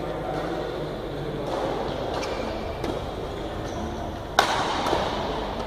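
Badminton racket striking a shuttlecock during a rally: a sharp crack about four seconds in, the loudest sound, then a lighter hit about half a second later, over steady background noise.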